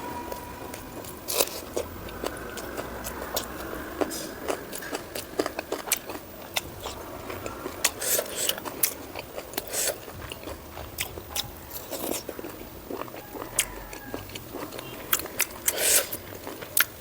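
Close-miked chewing and biting of pork fat and rice, with many sharp, irregular wet mouth clicks and smacks.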